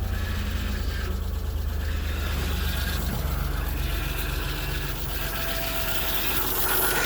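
A 1998 Chrysler Cirrus's 2.5-litre V6 idling steadily with a light mechanical clatter, running on a freshly replaced timing belt and cam seals just after being restarted.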